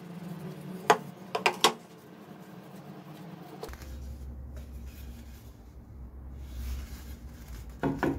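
A wooden slab handled on a wooden tabletop, giving a few sharp knocks about a second in and again near the end, with quiet handling and rubbing between, over a steady low hum.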